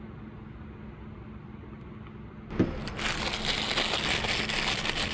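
Thin plastic takeaway bag crinkling and rustling as hands handle and open it, beginning with a single knock about two and a half seconds in. Before that, only a faint steady hum.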